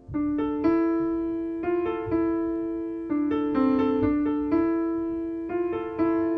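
Piano music: notes and chords struck one after another at an unhurried pace, each ringing and fading before the next.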